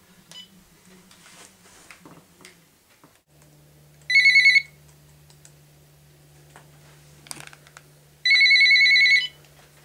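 Telephone ringing with an electronic trill, twice: a short ring about four seconds in and a longer one of about a second near the end.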